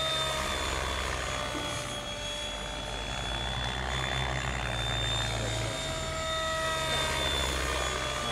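Radio-controlled 3D aerobatic helicopter flying manoeuvres: rotor noise with a steady high whine, and a mid-pitched tone that fades away in the middle and comes back near the end as the helicopter moves.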